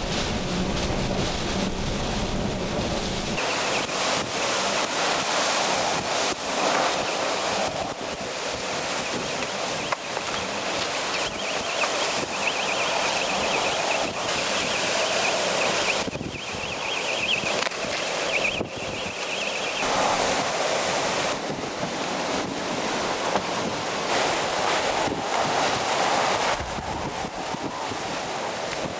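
Hurricane wind blowing hard in gusts, a dense rushing hiss that swells and eases. A high whistling tone sits over it through the middle stretch.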